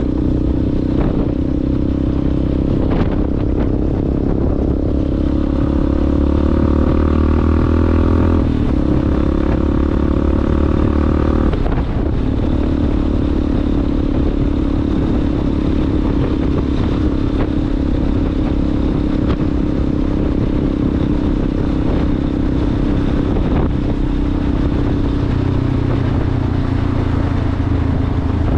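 Yamaha Ténéré adventure motorcycle engine running through a Coyote aftermarket exhaust on an off-road ride. The engine pitch climbs from about four seconds in and breaks off briefly near twelve seconds, as at a gear change, then holds steady. There are a few sharp knocks in the first three seconds.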